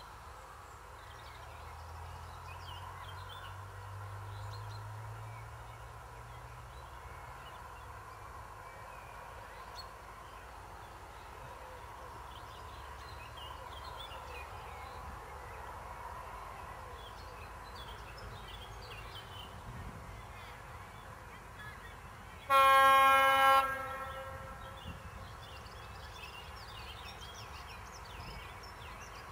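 Diesel train air horn on an approaching First Great Western HST power car, one loud blast of about a second. Birds chirp throughout.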